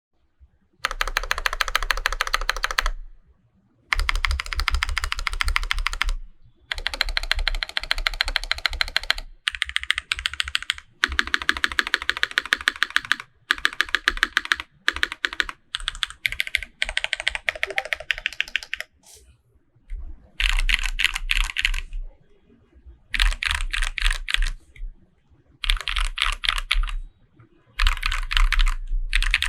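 Custom Varient 82 mechanical keyboard with a brass plate, lubed Holy Panda tactile switches and GMK keycaps, typed on quickly in bursts of a second or two with short pauses between them.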